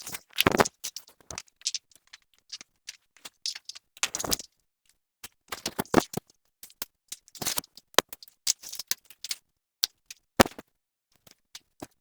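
Display frame being put together by hand: irregular clicks, knocks and rattles of frame parts being fitted, mixed with short bursts of rustling.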